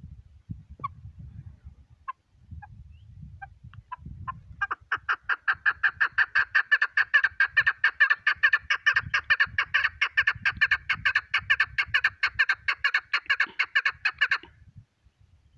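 Caged chukar partridge calling: a few separate call notes, then a long, fast, even run of chuk notes, about five a second, that stops suddenly about a second before the end.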